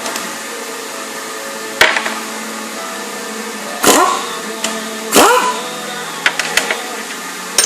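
Three loud metal strikes, each followed by a short ring that falls in pitch, over a steady mechanical hum, with a few lighter clicks near the end.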